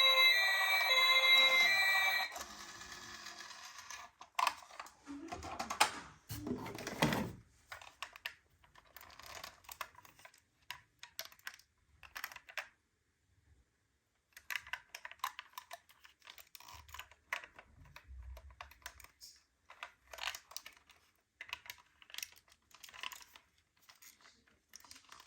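Small plastic toy cars being handled, with light, irregular clicking and clattering. A short electronic tune cuts off about two seconds in, and a falling glide sounds around six seconds in.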